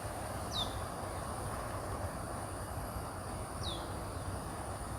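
Outdoor ambience: a steady high-pitched insect drone over a low rumble. A short, high, falling call sounds twice, about three seconds apart.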